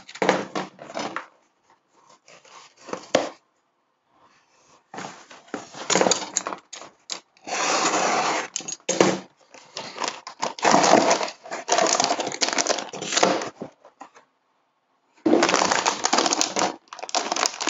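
Paper mailer envelope being slit with a box cutter and torn open, stiff paper rustling and ripping in irregular bursts. Near the end, a plastic bag crinkles as it is handled.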